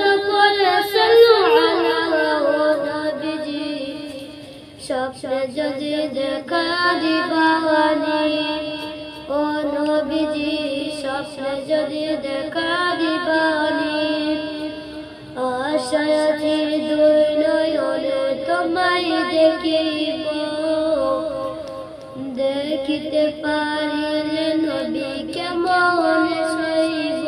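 A boy singing a Bengali Islamic gojol, a devotional song, in long melodic phrases with wavering, ornamented pitch and short breaks between phrases.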